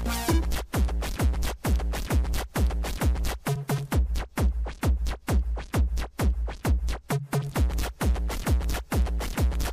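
Electronic dance music demo of Sylenth1 synth presets: a steady four-on-the-floor kick, about two beats a second, under short synth notes with falling pitch sweeps. A held synth chord stops right at the start.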